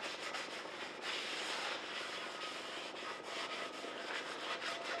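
Coffee filter rubbing oil over the surface of a cast iron skillet: a quiet, steady scrubbing as the first thin coat of seasoning oil is spread on.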